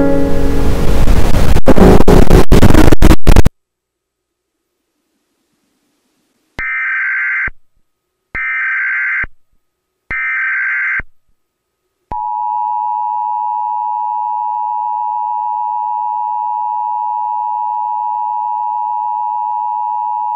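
A loud burst of harsh noise cuts off suddenly after about three and a half seconds. After a pause come three Emergency Alert System data bursts, each about a second long, and then the EAS two-tone attention signal, held steady for about eight seconds.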